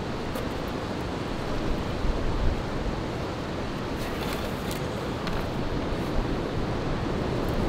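Wind buffeting the microphone: a steady rushing noise. A few faint rustles of cord being wrapped around the wooden poles come about four seconds in.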